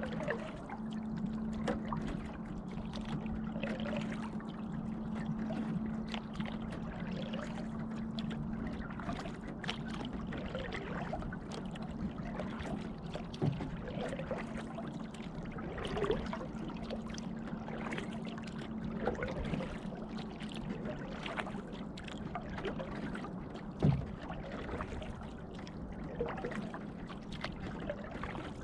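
Canoe paddling on calm lake water: the paddle dipping and water trickling and dripping, with a few light knocks, the loudest about two-thirds of the way through. A steady low hum runs under it for the first two-thirds, then fades.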